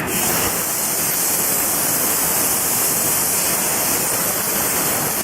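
100 A CNC plasma cutter's torch cutting metal: a loud, steady hiss that begins suddenly and cuts off suddenly near the end.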